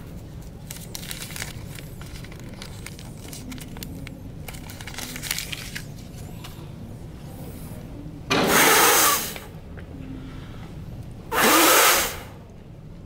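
Two loud, breathy rushes of air about three seconds apart, each lasting about a second, from a man's breath close to the microphone; faint rustling comes before them.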